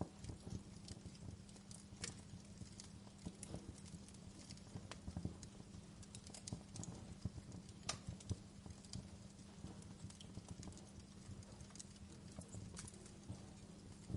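Wood fire crackling: irregular small snaps and pops over a low steady hiss, with a few sharper pops about 2, 5 and 8 seconds in.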